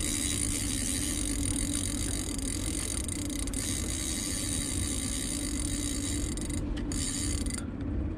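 A boat's outboard motor running steadily with a low hum, holding the boat against the current while back trolling. A faint high-pitched whine rides above it and cuts off near the end.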